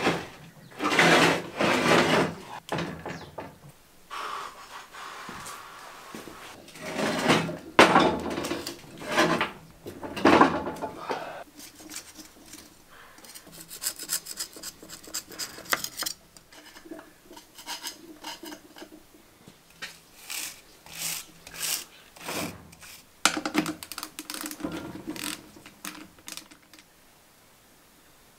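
Hand tools and metal parts scraping, rubbing and clinking: a scraper digs packed dirt and old grease out of a Land Rover Series 1 front-axle swivel housing, with knocks of the hub and brake parts against a steel workbench. It comes in uneven strokes, loudest in the first few seconds and again a few seconds later.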